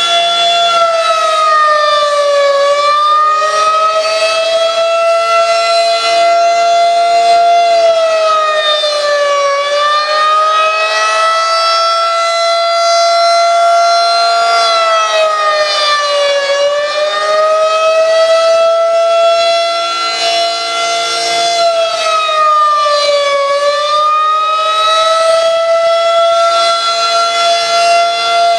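Federal Signal 2001-SRN outdoor warning siren sounding the attack signal: a loud, steady siren tone that dips in pitch and glides back up about every seven seconds.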